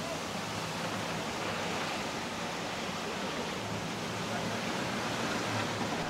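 Steady rushing noise of storm wind and rough sea churning and foaming along a ship's hull, with a faint low hum underneath.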